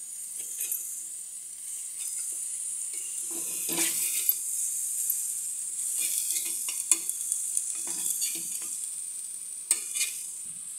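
Halved tomatoes sizzling steadily on a hot flat pan as they are turned over. Short scrapes and clicks of a utensil against the pan come again and again while the pieces are flipped.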